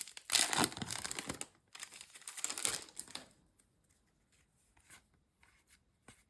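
A Yu-Gi-Oh! booster pack's wrapper being torn open and crinkled, two spells of rustling over about three seconds, then only faint light ticks of the cards being handled.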